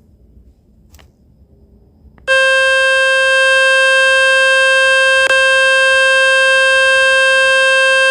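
Samsung Galaxy A12 phone speaker playing the Fix My Speaker water-ejection tone: a loud, steady, buzzy beep that starts suddenly about two seconds in, with a brief click partway through. The tone is meant to shake water, dust and dirt out of the speaker.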